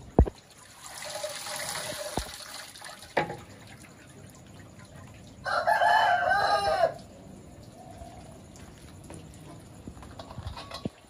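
A rooster crows once, about five and a half seconds in, for about a second and a half, the loudest sound here. Around it, a metal skimmer ladle knocks against a large aluminium cooking pot and broth splashes as boiled beef is lifted out.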